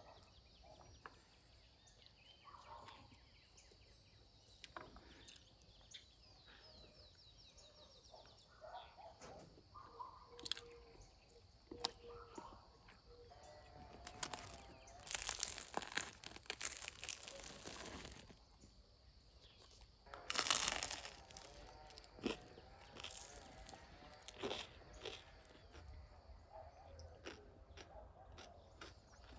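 Crusty tandoor-baked flatbread crackling and crunching as it is broken by hand, in two longer bursts, the second about 20 seconds in being the loudest. Around them are light clicks of metal skewers and tableware.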